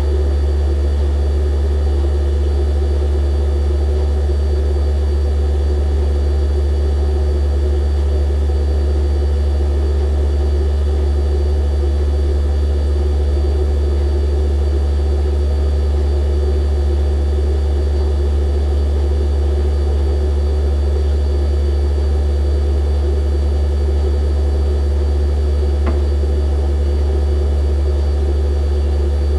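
Refrigerator running: a steady, loud low hum from its compressor, with fainter steady higher whines above it.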